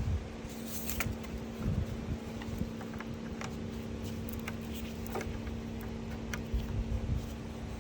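Scattered light clicks and taps of hand work in a car's engine bay, such as plugging electrical sensor connectors back in, over a steady low hum.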